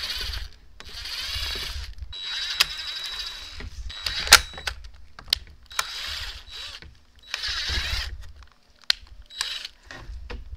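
DeWalt 20V MAX cordless driver spinning a 1/4-inch drill bit through a plastic panel in about six short bursts of high motor whine, with sharp clicks and knocks between them.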